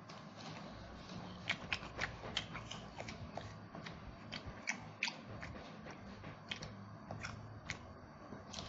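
A person chewing a mouthful of roast duck, with irregular wet mouth clicks and lip smacks, several a second, over a faint steady low hum.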